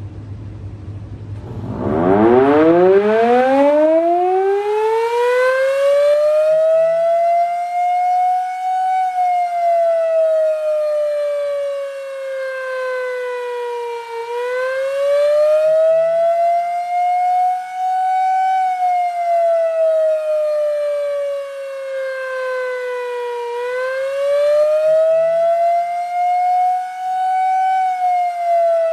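Sterling M10 electromechanical outdoor warning siren winding up from a stop about two seconds in, its pitch climbing steeply, then sounding a wail: the pitch slowly sinks and rises again about every nine to ten seconds.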